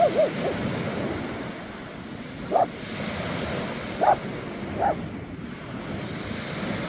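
Small waves breaking and washing up the beach, with wind buffeting the microphone. Short pitched calls cut through four times, at the start, about two and a half seconds in, about four seconds in and about five seconds in.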